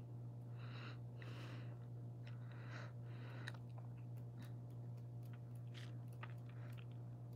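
Quiet room tone with a steady low hum, a few soft breaths close to the microphone, and scattered small mouth or handling clicks.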